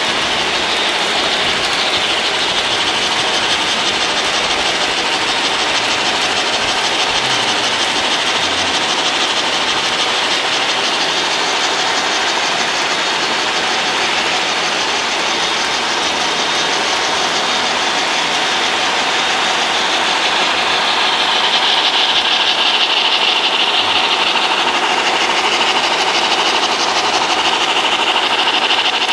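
Model trains running on the layout's track: a steady whir of the electric motors and a rapid rattle of wheels on the rails. A high whine grows louder about two-thirds of the way in.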